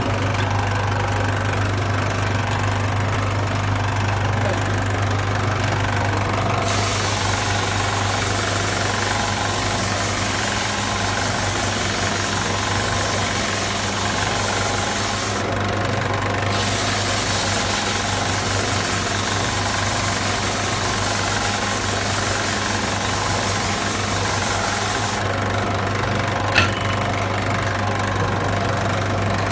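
Ferm belt-and-disc bench sander running with a steady electric motor hum. Wood pressed against the moving sanding belt adds a hiss in two long stretches with a short break between them, and there is a single sharp click near the end.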